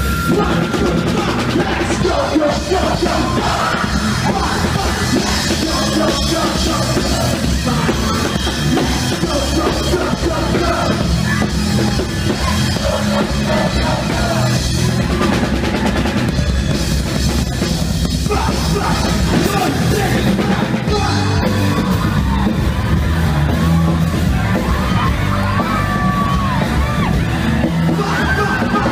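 Loud music with a drum kit and heavy bass beat, with yelling voices over it.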